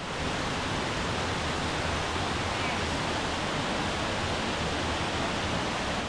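Steady rushing of a waterfall, water pouring over limestone into pools: an even, unbroken hiss.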